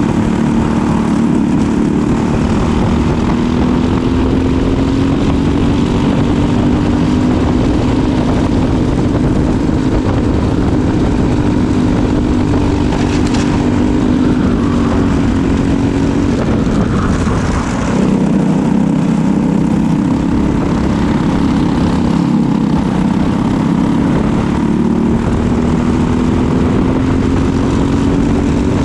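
Briggs & Stratton LO206 single-cylinder four-stroke kart engine running at race speed, its pitch climbing along the straights and falling with the throttle for corners. The sharpest drop comes about two-thirds through, before it climbs again.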